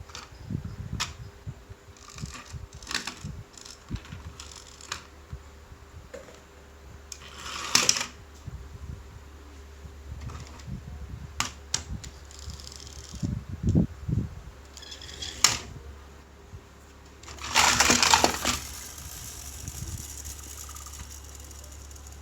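Diecast toy cars being handled: scattered clicks and clinks of small metal parts and low knocks as they are set down. There are two longer rattles, one about a third of the way in and one near the end, over a faint steady low hum.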